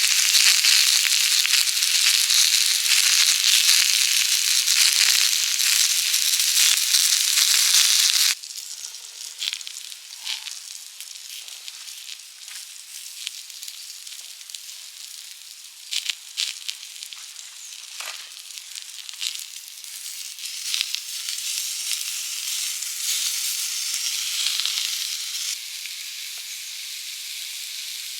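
Crackling hiss of a recumbent trike's tyres rolling over the road surface while riding, with scattered ticks. It is loud for about the first eight seconds, then drops suddenly to a quieter, uneven hiss that swells again for a few seconds near the end.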